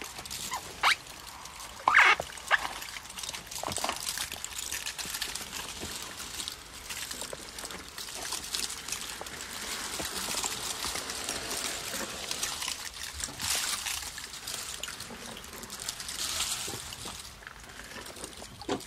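Elephant feeding in the rain: a few sharp cracks of branches snapping in the first three seconds, then a steady hiss of rain and rustling vegetation that swells and fades.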